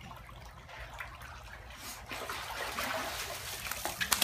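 Water splashing and trickling, growing louder about two seconds in, with a few sharp splashes near the end.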